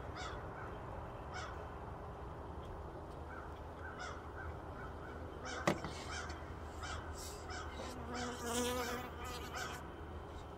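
Honeybees buzzing at a hive entrance, with one bee passing close to the microphone about eight seconds in as a louder, pitched hum lasting about a second. A single sharp click a little past halfway.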